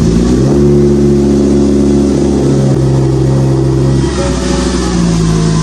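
Mk5 Jetta's 2.5-litre inline-five engine running steadily at idle just after start-up, with no stuttering: so far no sign of the misfire after new spark plugs and a coil.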